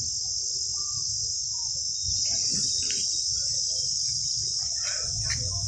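A steady chorus of insects, an unbroken high-pitched buzz, with faint scattered background sounds below it.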